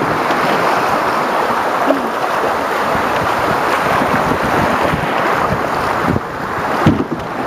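Rushing whitewater of a rocky river rapid close around a canoe, a loud steady roar of churning water, with two short knocks near the end.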